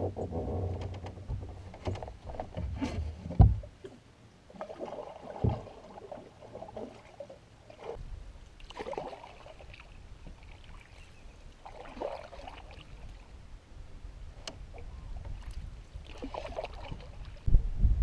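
Canoe being pushed off from the bank and boarded: water sloshing against the hull, with two sharp knocks on the hull a few seconds in. Then single paddle strokes pulling through calm water, about every three to four seconds. Music starts near the end.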